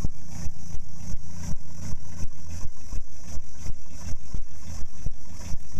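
A small wooden fishing boat's engine running with a steady chugging beat, about four beats a second, as the boat moves off under power.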